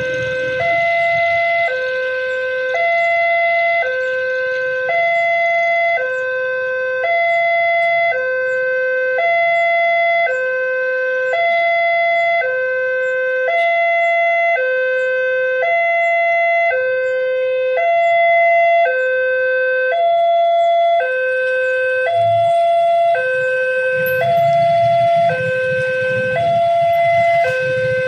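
Level-crossing warning alarm sounding: a two-tone electronic alarm that alternates between a low and a high note about once a second, signalling that a train is approaching. A low rumble comes in under it during the last few seconds.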